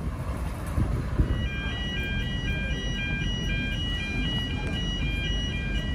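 Level crossing warning alarm starting up about a second in: a repeating two-note electronic ding that alternates about twice a second, the signal that a train is approaching. Low rumble underneath.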